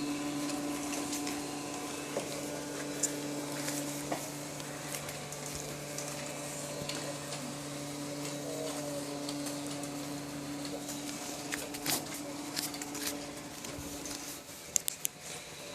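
Vacuum cleaner running with a steady motor hum and scattered clicks and knocks, the hum dying away shortly before the end.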